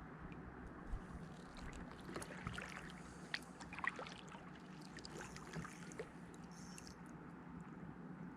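Small knocks, clicks and light water sounds from a kayak and its gear on the water, over a steady low hum.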